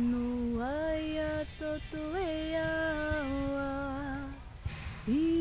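A woman's voice singing long held vowel notes without words, in improvised light language chant. A low held note glides up a step about half a second in and wavers briefly around two seconds. It fades out, and after a short pause with a breath a new note begins just before the end.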